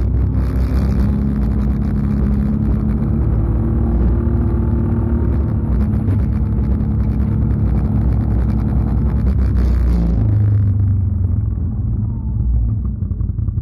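Can-Am Outlander 650 XMR ATV's Rotax V-twin running through an aftermarket MBRP muffler at a steady cruising pace. About ten seconds in the rider eases off the throttle and the exhaust note drops to a lower, deeper pitch.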